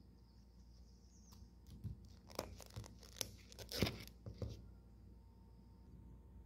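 Thin plastic crinkling and clicking as a hand handles small plastic sauce cups beside a takeout box. A dense cluster of sharp crackles comes in the middle, over a faint steady high whine.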